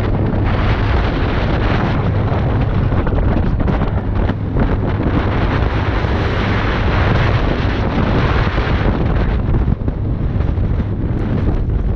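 Fishing boat underway: its engine running with a steady low hum, under heavy wind buffeting on the microphone and water rushing past the hull.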